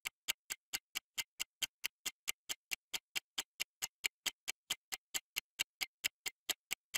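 Countdown timer ticking sound effect: a steady, even clock-like tick, about four to five ticks a second.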